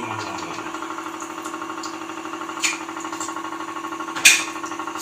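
Aquaguard water purifier's pump running with a steady vibrating hum. Two sharp knocks cut across it, the louder one near the end.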